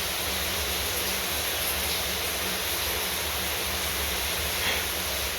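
Shower running: a steady rush of water spray.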